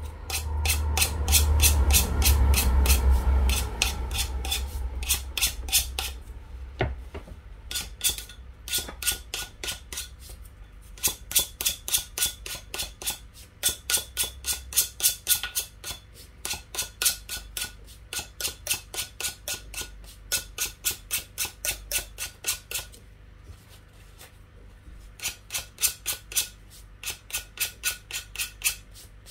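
Emery board rasping in short, quick strokes along the edge of a glass plate, sanding off excess decoupage napkin: about four strokes a second, with brief pauses. A loud low rumble of handling sits under the first few seconds.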